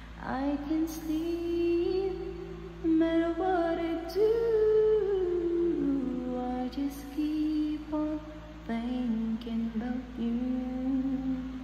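A woman singing a wordless melodic line, holding long notes and sliding up and down between them.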